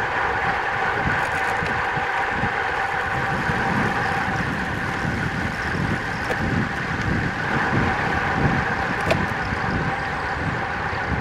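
Wind buffeting the microphone of a road bike descending at speed: a gusty, fluttering rumble over a steady hum, with a few small clicks.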